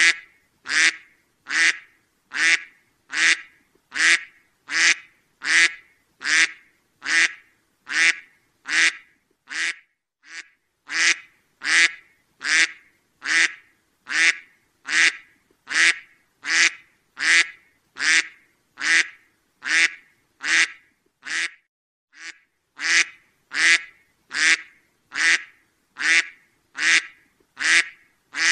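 A duck quacking over and over at a steady pace, a little more than one short quack a second, each call much alike. The run pauses briefly about three quarters of the way through.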